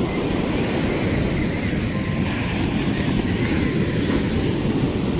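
Breaking ocean surf at the water's edge: a steady rushing noise with a heavy low rumble.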